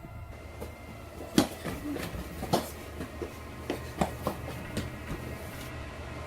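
Several irregular knocks and bumps over a steady low hum, the loudest about a second and a half in.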